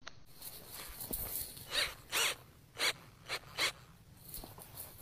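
Cordless drill run in about five short bursts, its bit rasping into a weathered wooden post.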